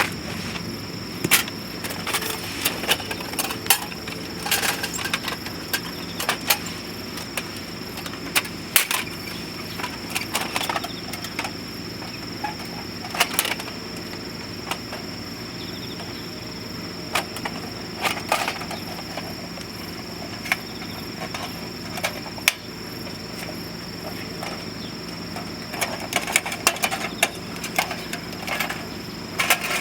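Wood burning in a rocket stove: a steady rushing fire with irregular sharp crackles and pops.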